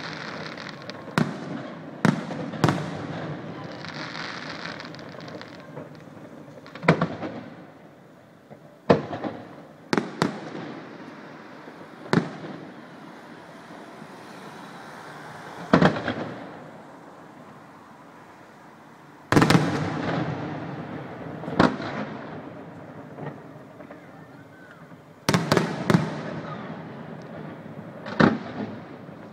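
Aerial firework shells bursting overhead: a dozen or more sharp bangs at irregular intervals, some two or three in quick succession, each trailing off in a long echoing rumble.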